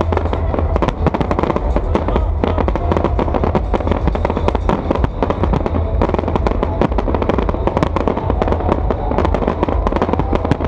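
Fireworks show in full barrage: aerial shells bursting in rapid, overlapping cracks and bangs, many a second, over a steady low rumble.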